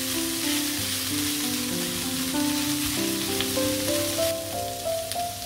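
Winged beans in belacan chilli paste sizzling as they are stir-fried in a nonstick pan and turned with a wooden spatula. The sizzle thins somewhat about four seconds in.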